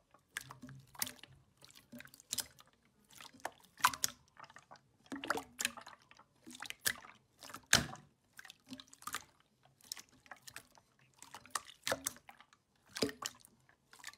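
Clear red slime pressed and kneaded by hand, giving irregular wet pops and squelches about one or two a second as pockets of trapped air are squeezed through it.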